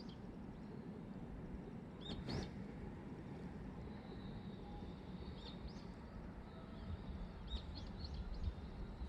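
Small birds chirping in short, scattered calls over a faint, steady low rumble.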